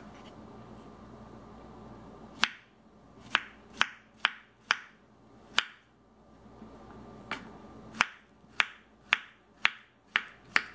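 Kitchen knife slicing a peeled banana into rounds on a bamboo cutting board, each cut ending in a sharp knock of the blade on the wood. About fourteen knocks at an uneven pace, starting a couple of seconds in, with a short pause partway through.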